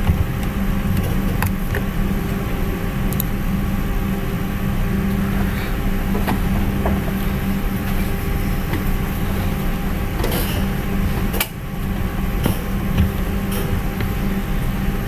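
Steady low background hum, like a fan or air conditioner picked up by the microphone, with a few short clicks scattered through it.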